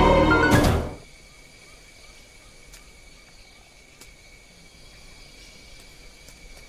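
Soundtrack music cutting off about a second in, then faint outdoor ambience with a steady high-pitched insect trill, like crickets, and a few faint ticks.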